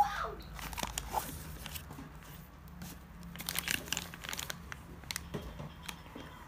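Packaging being handled while a cylinder kit is unpacked from its box: crinkling and rustling with scattered light clicks, and a brief louder rustle at the very start.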